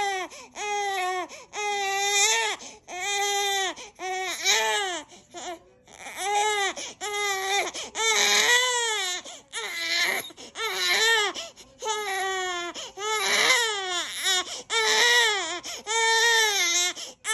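A three-month-old baby crying hard: a steady run of wails, each about a second long, one after another with short breaths between.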